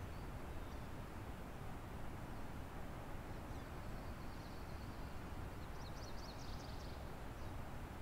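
Steady rushing of a river out of sight, with faint high chirps of small birds over it and a quick run of chirps about six seconds in.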